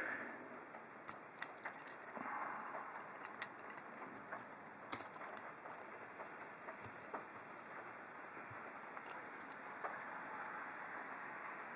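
Faint, scattered small metallic clicks and taps of a steel padlock and lock-picking tools being handled, over a low steady hiss; the loudest click comes about halfway through.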